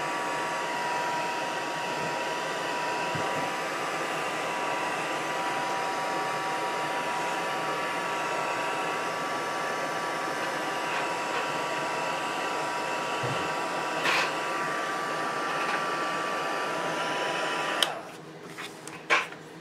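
Handheld electric heat gun running steadily, a whine over the rush of hot air, as it shrinks heat-shrink tubing over a soldered wire splice; it switches off near the end.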